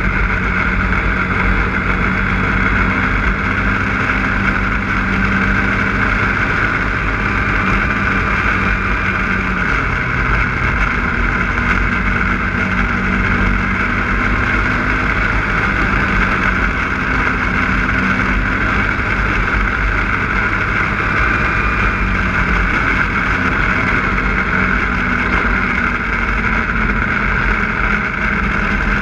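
Snowmobile running at a steady riding speed. Its engine note holds nearly level, with small shifts in pitch.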